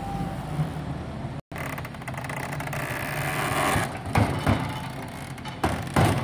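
An engine running steadily, cut by a brief dropout about a second and a half in. Several sharp knocks or clanks come around four seconds in and again near the end.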